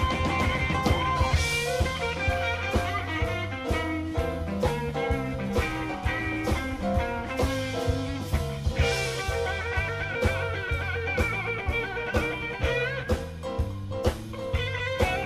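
Live blues band playing: electric guitar, bass guitar, drums and keyboard, with a steady stepping bass line under regular drum hits.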